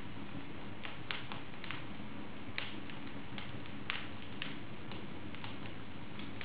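Wood fire in an open fireplace burning with a steady low hiss and irregular crackles and pops, a few sharper snaps about a second in, past two and a half seconds and near four seconds.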